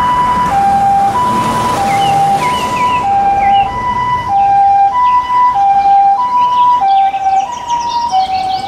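Two-tone hi-lo siren of a Japanese Toyota high-roof ambulance driving past, alternating a higher and a lower note about every half second, with traffic noise underneath.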